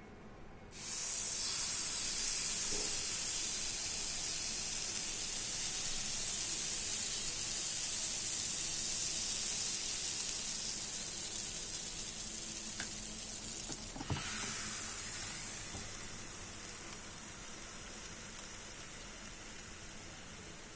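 Waffle batter sizzling on the hot plates of an electric waffle maker, a loud steady hiss starting suddenly about a second in. About two-thirds through there is a single clunk as the lid is shut, and the sizzle then goes on more quietly and slowly fades.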